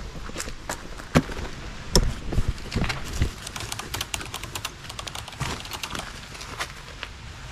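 Rapid, irregular light clicks and taps, with a few louder knocks about one and two seconds in.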